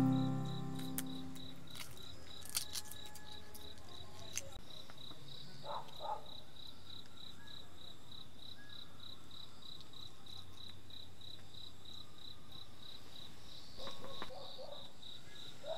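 A cricket chirping steadily, a high note pulsing about three times a second, with a few faint knocks and clicks around it.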